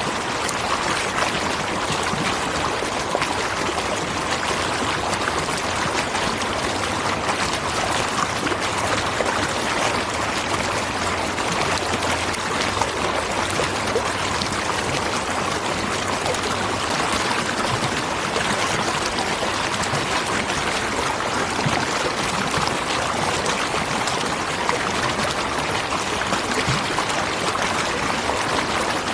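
Waterfall water pouring and splashing in a steady, unbroken rush, with bright splashy hiss.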